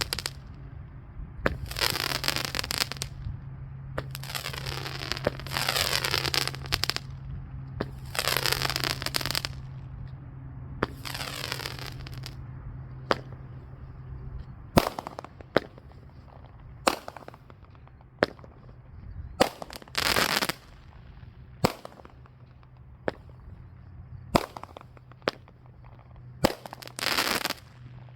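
A 200-gram, 12-shot consumer firework cake firing its shots one after another. The first several shots go up as second-long rushing bursts, and the later ones as sharper single bangs. Many short crackling pops come between them from the crackling comets and crackle effects breaking. A steady low hum runs through the first half.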